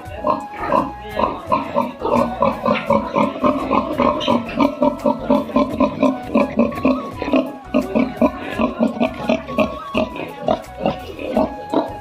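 Pigs grunting and squealing in a rapid string of short calls, about three a second.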